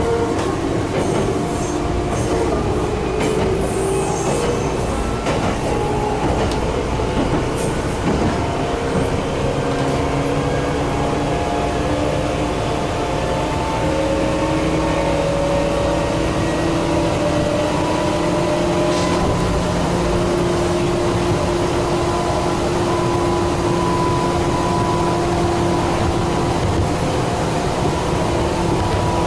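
Meitetsu 6000 series electric train running, heard from inside the leading car: a rumble of wheels and body with a motor and gear whine that rises in pitch through the first half as the train gathers speed, then holds steady. A few sharp clicks come in the first several seconds.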